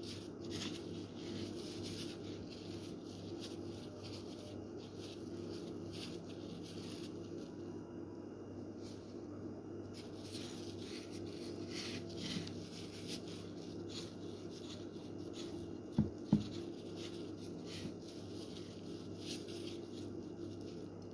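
Soft rustling and rubbing of plastic-gloved hands rolling food balls in breadcrumbs, over a steady low hum. There are two sharp clicks close together about three-quarters of the way through.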